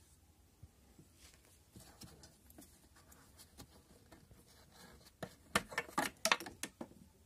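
Gloved hands working metal seat-cover clips off a car seat frame rod: faint scraping and rubbing, then a quick run of sharp clicks and snaps near the end as the clips are snapped free.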